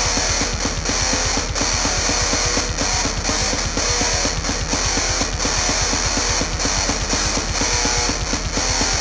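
Loud guitar-driven music, with electric guitar strumming over a fast, evenly pulsing low rhythm.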